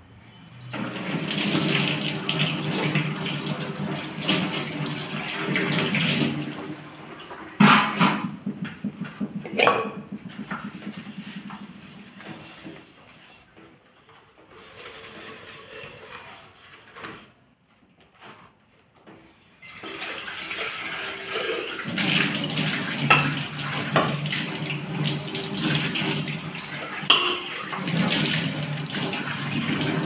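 Kitchen tap running into a stainless steel sink while a pot is rinsed and scrubbed by hand. The water runs for the first several seconds and again through the last third. In between it is quieter, with a couple of sharp knocks of the pot against the sink.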